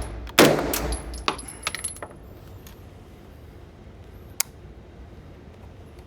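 A single loud gunshot with a short echoing tail, followed by several light metallic clinks, then a low steady hum with two faint ticks.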